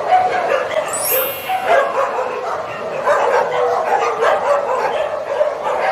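Many shelter dogs barking, yipping and whining at once in a steady overlapping chorus, with a brief shrill squeal about a second in.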